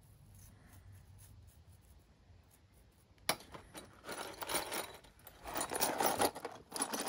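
Small metal pedal parts clattering and scraping against each other and a plastic tub as they are scrubbed with a toothbrush and shaken in cleaning liquid. It starts with a sharp click about three seconds in and turns into a busy, irregular rattle.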